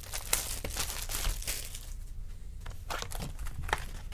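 Clear plastic wrapper from a box of baseball cards crinkling as it is handled and pulled away, busiest in the first two seconds, then a few scattered crackles.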